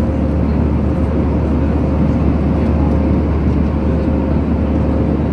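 Steady cabin noise of an Airbus A319 in cruise: engine and airflow drone heard inside the cabin, a dense low rumble with a faint steady hum above it.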